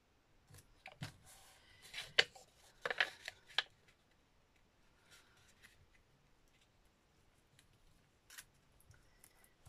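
Card and adhesive strip being handled by hand: a cluster of crinkly rustles and sharp clicks in the first few seconds, then a few faint ticks and one sharper click near the end.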